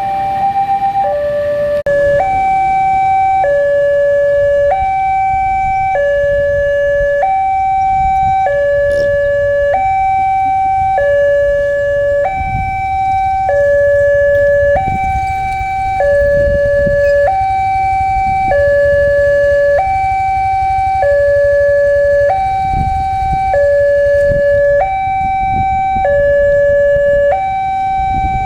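Railway level-crossing warning alarm sounding a loud two-tone hi-lo signal. It alternates quickly between the two pitches at first, then settles about two seconds in to one change roughly every 1.2 s. A low rumble of engines runs underneath.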